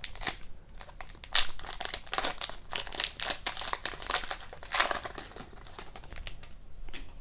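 Plastic-foil wrapper of a hockey card pack crinkling as it is handled and torn open, in clusters of quick crackles.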